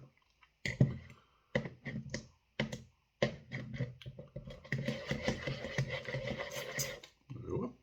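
A utensil clicking and knocking against a bowl as chicken pieces are mixed through buffalo sauce: separate clicks at first, then a denser run of scraping and rattling about five seconds in.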